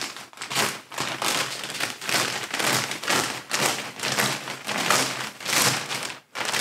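Plastic mailer bag being opened and handled: a run of crinkling rustles about every half second, with a brief pause near the end.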